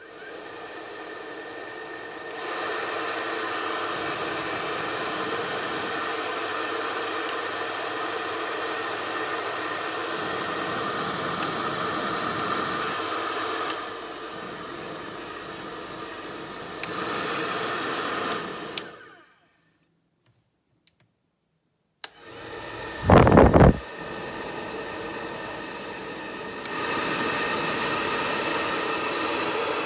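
ROTEX RFF152-B hair dryer running with a steady hiss of air, switched between speed settings: louder about two seconds in, quieter for a few seconds, then louder again. It is switched off and winds down with a falling whine, stays silent a few seconds, then starts up again with a brief loud low rumble and steps up to a higher setting near the end.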